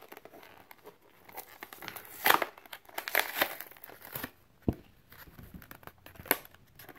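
Cardboard-and-plastic blister packaging of a diecast toy car being torn open by hand: paper-backed card ripping and the plastic blister crinkling, with the loudest rip about two seconds in, another run of tearing about a second later, and a few sharp crackles after.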